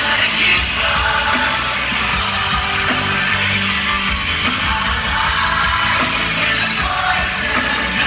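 Live rock band playing loud, with electric guitars, drums and a lead vocal, heard from the crowd through a phone's microphone.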